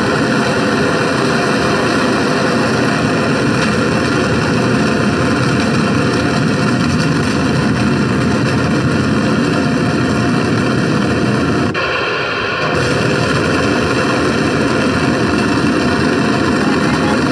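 Recorded rocket-launch roar played loud over loudspeakers: a steady, dense rushing noise that briefly dulls about twelve seconds in.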